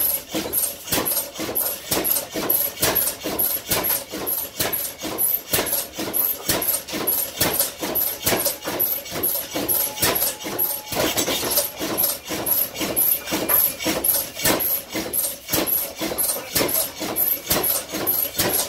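Half-breed engine, a large horizontal flywheel engine, running steadily with a sharp beat about twice a second. A brief hiss comes about eleven seconds in.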